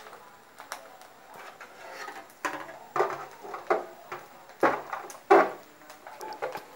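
Kitchen utensils clattering against a pot and dishes as food is dished out: a handful of sharp knocks and scrapes, the loudest two a little past halfway.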